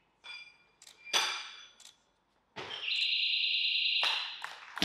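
Barbell snatch: the plates clink as the bar leaves the platform, then a loud ringing clang about a second in as the lift is caught. About three seconds in a steady electronic buzzer sounds for roughly a second, the referees' down signal for the lift, over crowd applause, and the bar lands on the platform right at the end.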